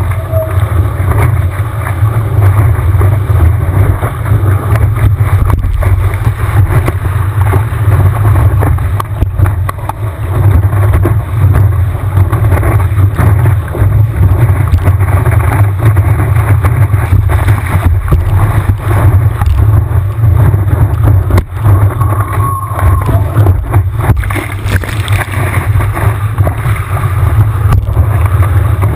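Wind and water rushing over a camera on the nose of a surfboard riding a wave: a loud, steady low rumble of wind buffeting the microphone, with the hiss of the board cutting through the water and spray.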